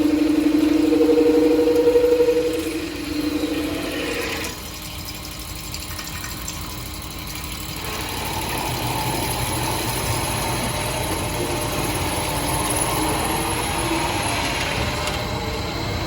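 CNC drilling special-purpose machine running: a steady motor hum with two held tones that stop about four and a half seconds in, then a noisier mechanical whir that builds from about eight seconds in and holds steady.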